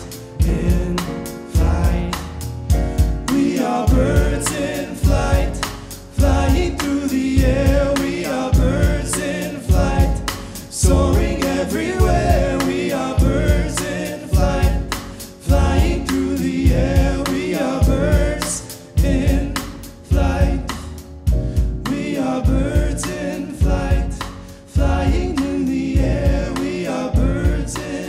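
Live band music: grand piano, upright acoustic bass and drum kit playing a steady groove, with voices singing over it.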